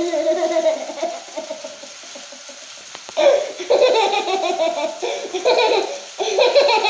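A toddler laughing hard in belly-laugh bursts. The laughter trails off after the first second or so, then breaks out again about three seconds in as a string of loud bursts.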